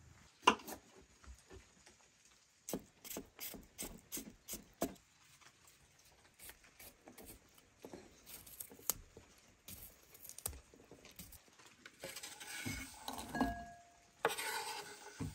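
A sharp knock about half a second in, then a knife tapping through cucumber onto a wooden cutting board in uneven runs of taps. Near the end comes a scraping rush as the diced cucumber is slid off the board into a ceramic bowl.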